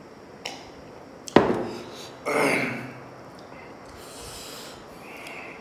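A glass beer mug set down on a wooden table with a sharp knock, then a loud breathy exhale through the mouth, a reaction to the burn of very spicy noodles.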